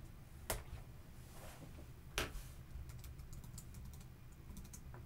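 Computer keyboard typing, faint: two firmer keystrokes about a second and a half apart, then a quick run of light key taps near the end.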